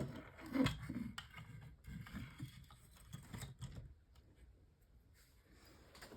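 Small fan heater's parts being handled during dismantling: light clicks, taps and rustles, busiest in the first four seconds and fading to a few faint clicks after.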